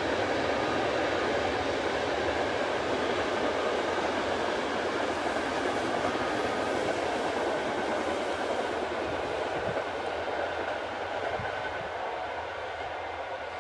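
Electric-hauled passenger express train, a locomotive and a long rake of coaches, rolling across a concrete railway viaduct. It makes a steady rumble of wheels on rail that slowly fades over the last few seconds as the train moves away.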